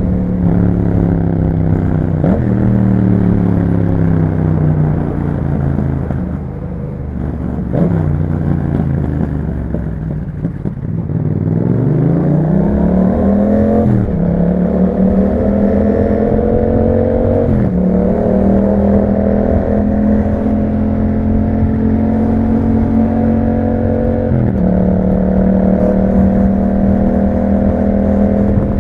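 2021 Yamaha MT-07's 689 cc parallel-twin running through an Akrapovic exhaust. Off the throttle, engine speed winds down for about ten seconds. It then accelerates again, with quick upshifts that drop the pitch a few times, and holds a steady cruising note in between.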